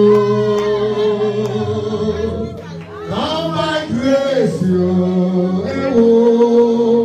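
Music: voices singing long held notes in two phrases, with a short break about two and a half seconds in.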